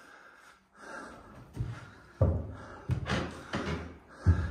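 Footsteps on a wooden floor: a handful of dull thuds about half a second to a second apart, the last the loudest.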